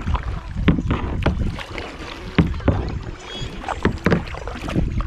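Kayak being paddled: irregular paddle splashes and a few sharp knocks over a low rumble.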